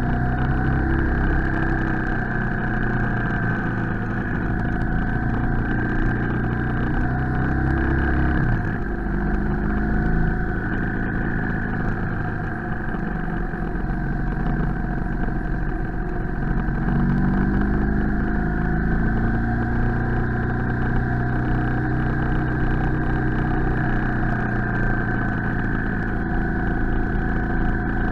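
BMW R 1250 GS Adventure's boxer-twin engine running under way on an uphill ride, over steady wind and road noise. The engine note falls about eight seconds in and rises again around seventeen seconds.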